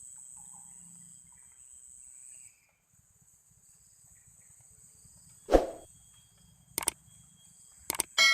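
Insects chirring steadily in a high, even whine, with one dull thump about five and a half seconds in and a few sharp clicks near the end.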